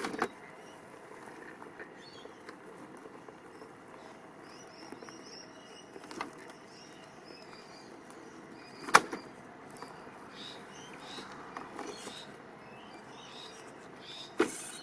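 RC scale crawler (1/8 Land Rover Defender) climbing slowly over a timber edge, its tyres and chassis giving a few sharp knocks, the loudest past the middle, over a low quiet hum of the drivetrain and ambient noise. Small birds chirp faintly in the background.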